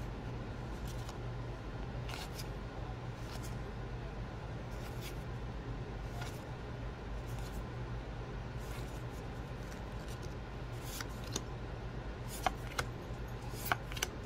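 Magic: The Gathering cards slid one at a time from a hand-held stack, a soft swish every second or so, with a few sharper clicks near the end. A steady low hum sits underneath.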